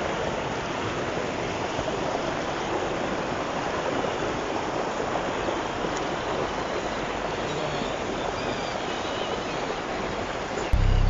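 Flowing river water rushing steadily. Music with a drum-machine beat cuts in just before the end.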